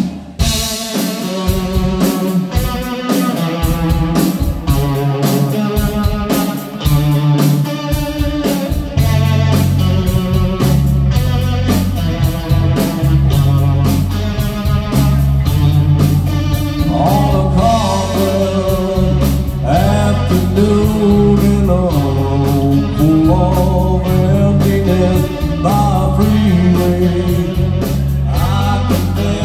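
Live blues-rock band playing: electric guitars and drum kit, with a heavy bass line coming in about nine seconds in. A man's vocals sing over the band in the later part.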